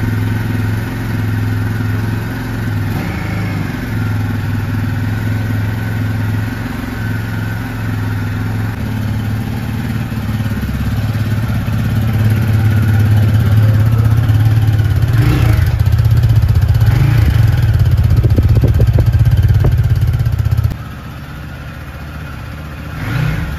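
Keeway SR250's 223 cc single-cylinder engine running through its stock exhaust in neutral: a steady idle, then revved and louder from about halfway, dropping back to a quieter idle near the end.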